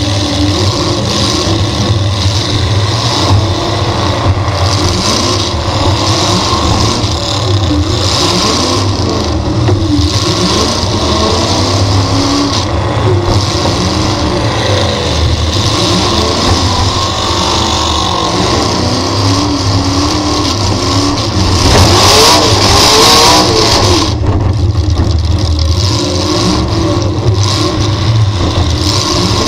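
V8 dirt-track race car engine running hard, its pitch rising and falling over and over as it revs up and backs off. A louder, rougher stretch of a couple of seconds comes about three quarters of the way through.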